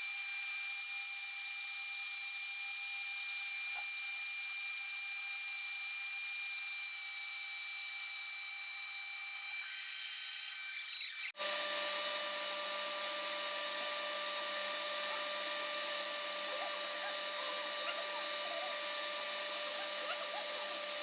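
Electric kitchen grinder running steadily with a high whine, grinding a thick mix of ingredients with no water added. About halfway through, the sound changes abruptly to a fuller motor tone with lower notes.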